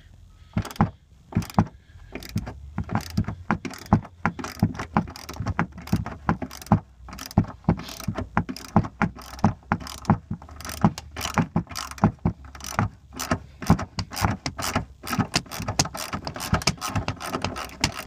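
Hand ratchet clicking over and over as it is swung back and forth, a few clicks a second, backing out a seatbelt anchor bolt.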